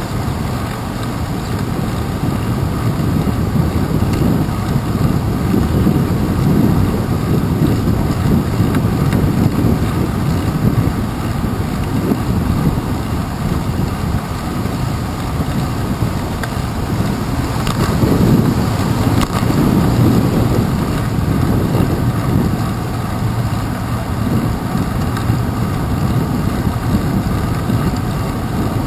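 Steady wind noise on a handlebar-mounted GoPro Hero 2's microphone as a bicycle rides along a wet path, mixed with the bike's rolling and road noise. It rises and falls a little but never stops.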